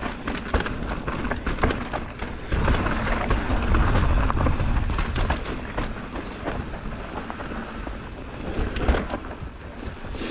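Mountain bike descending a rough downhill trail: tyres rolling over dirt with constant rattling, clicks and knocks from the bike over bumps.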